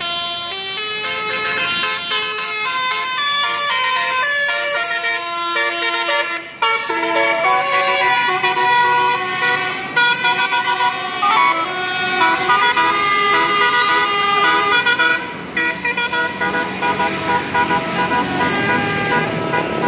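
Many vehicle horns honking over one another, their tones overlapping and changing continually.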